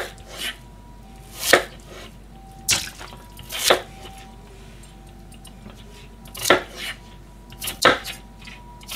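Kitchen knife chopping an onion on a plastic cutting board: single sharp chops at uneven intervals, about ten in all, with a pause of a couple of seconds in the middle.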